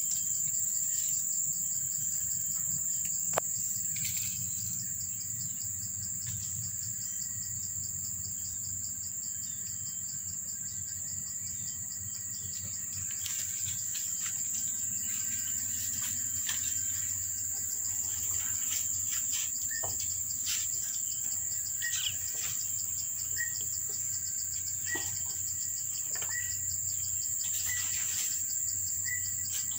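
Steady high-pitched insect drone, with a short chirp repeating every second or so through the second half.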